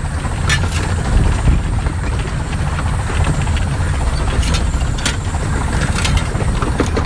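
Steady low rumble in the cab of the 15-inch gauge steam locomotive Northern Chief running along the line, with a light hiss over it and a few short sharp knocks.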